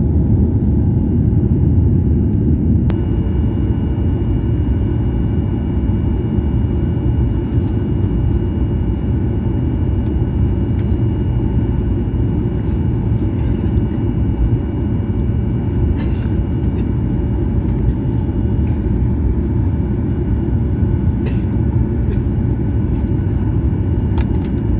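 Jet airliner cabin noise heard from a passenger seat: a steady low rumble of engines and airflow, with a faint steady whine that comes in a few seconds in.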